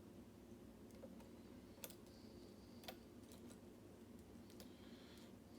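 Faint metallic clicks of a lock pick working the pins of a mortise lock cylinder, about five of them irregularly spaced, with a light high scrape now and then.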